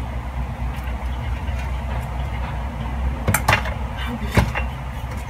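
A steady low rumbling hum, with a few short sharp clicks about three and a half seconds in and one more about a second later.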